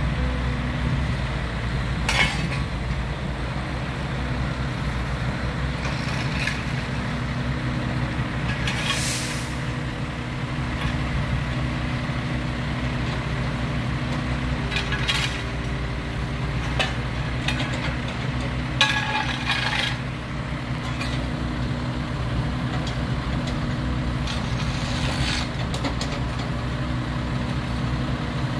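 Heavy work-vehicle engine running steadily at low revs, with a few short hisses and occasional knocks over it.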